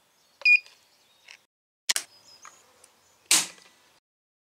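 A Lyman digital trigger pull gauge gives a short beep as it is set, then clicks and a louder snap as it is drawn on a Daystate Red Wolf air rifle's trigger until the trigger breaks, at about 8 to 9 ounces of pull.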